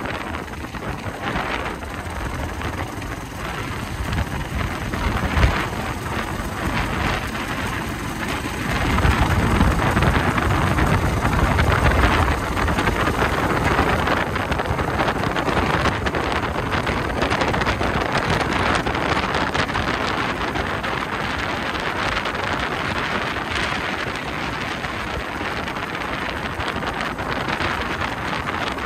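Honda XR250R single-cylinder four-stroke enduro motorcycle riding at road speed, its engine buried under heavy wind noise on the microphone. The rush grows louder for a few seconds about nine seconds in, then settles.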